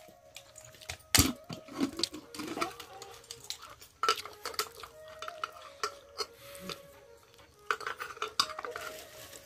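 Metal pots, plates and utensils clattering and scraping in irregular knocks, with the loudest sharp clank about a second in.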